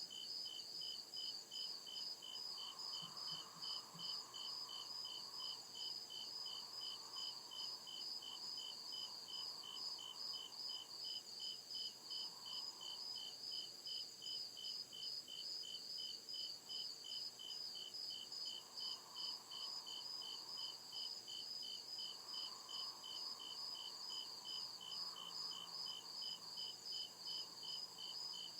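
Crickets chirping in a steady, even rhythm, about two high-pitched chirps a second without a break, with a fainter lower insect hum that comes and goes.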